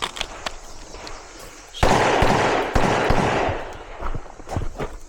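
Pistol shots from a compensated 9mm Glock 19-pattern pistol, fired in quick strings during a timed stage. They begin about two seconds in with several rapid cracks, pause briefly, then more shots come near the end.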